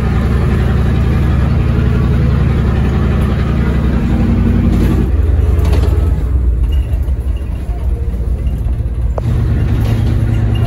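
LiAZ-677MB bus engine running steadily, its note dropping about five seconds in.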